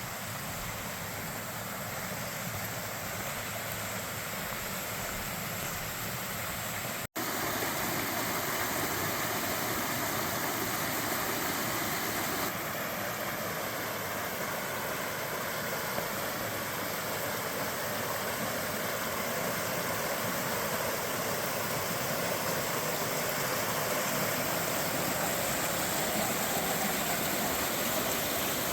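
Waterfall on a small mountain stream, a steady rush of falling water. It breaks off for an instant about seven seconds in, then goes on slightly louder.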